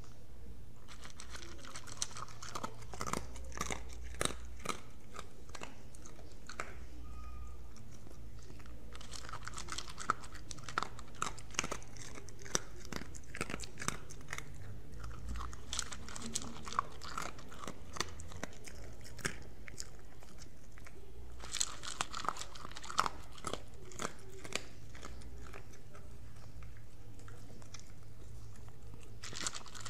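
A dog chewing and crunching its food, in bouts of rapid sharp crunches with short pauses between them.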